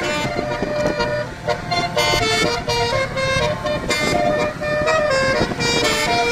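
A bus's basuri musical air horn (klakson telolet basuri) playing a tune: loud pitched horn notes changing every fraction of a second.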